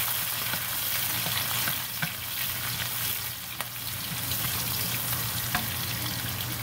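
Chopped onion sizzling in hot oil in a nonstick wok as a wooden spatula stirs it, a steady hiss with a few sharp clicks of the spatula against the pan.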